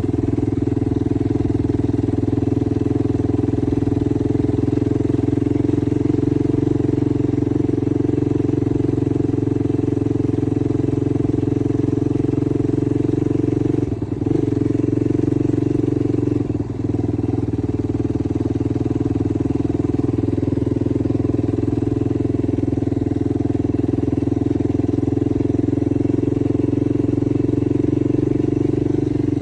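Yamaha YFZ450R sport quad's single-cylinder four-stroke engine running at a steady pace, with two brief dips in the middle.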